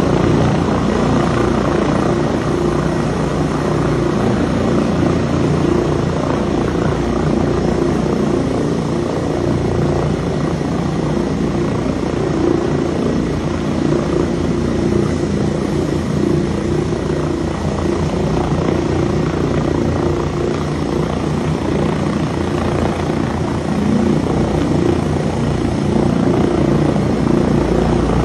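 Air ambulance helicopter hovering low overhead, its rotor beating steadily and loudly throughout.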